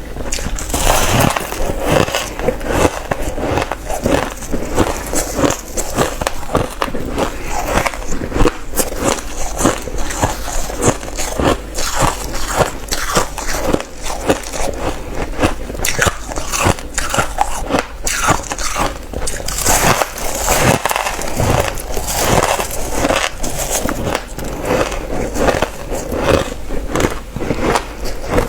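Close-up crunching of reshaped crushed ice dusted with matcha powder, bitten and chewed in a dense, continuous run of crisp cracks and crunches.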